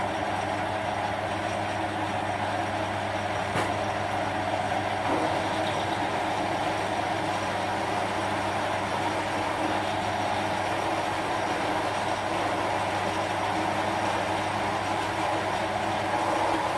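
Small metal lathe running steadily under power, a constant motor hum with a higher whine over it.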